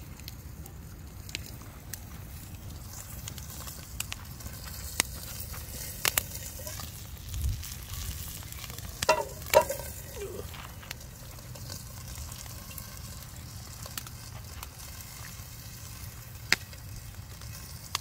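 Chicken frying in a cast iron pan over a campfire: a steady sizzle with scattered pops and crackles, and a few sharp knocks, the loudest about halfway through.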